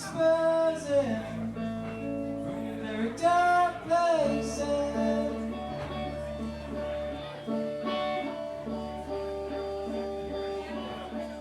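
Live band music, guitar-led with bass underneath, and a lead line of long held notes that bend in pitch over the first few seconds.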